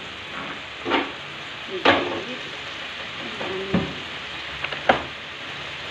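Food sizzling in a frying pan, a steady hiss, while it is stirred, with about four sharp scrapes or knocks against the pan.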